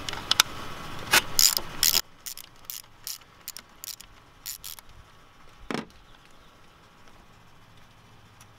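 Hand socket ratchet clicking in quick runs as it backs out a bolt, the clicks thinning out over the first five seconds, with one louder click about six seconds in.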